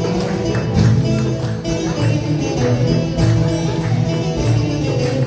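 Live Turkish folk music with a steady dance beat, played on bağlama (long-necked saz), darbuka, frame drum and tambourine and heard through PA speakers.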